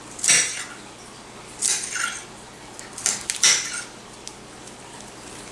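Kitchen knife cutting broccoli on a countertop: several short cutting strokes spread over a few seconds, two of them close together about three seconds in.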